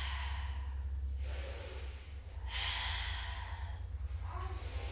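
A woman's deep breathing, paced with the movement: two long breaths, with a third starting near the end, over a low steady hum.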